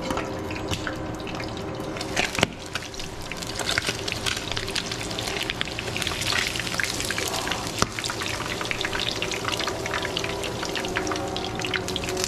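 Milkfish frying in hot oil in a pan: continuous fine crackling and sizzling, busiest around the middle when the lid is off and the fish is turned with tongs. A single sharp click about two seconds in.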